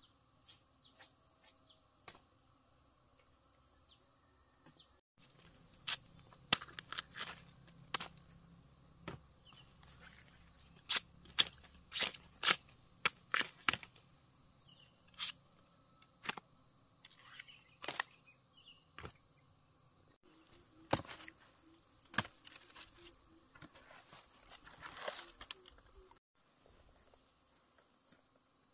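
Steady chorus of insects with a high, even buzz. Sharp knocks and clicks are scattered through the middle, and near the end comes a quick run of ticks, several a second, lasting about five seconds.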